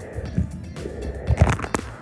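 Background music, over a low rumble with a few knocks about one and a half seconds in.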